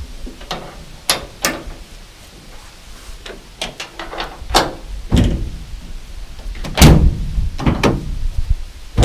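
Ford Super Duty pickup's steel tailgate being refitted and shut: sharp metal clicks and knocks as it is handled, then it swings up and latches with a heavy thump about seven seconds in, followed by a couple of lighter knocks.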